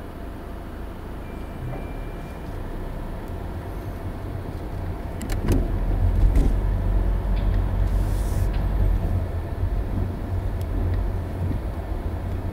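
Low rumble of a car driving slowly up a ferry loading ramp, heard from inside the cabin. The rumble grows louder about halfway through, with a few sharp knocks around the same time.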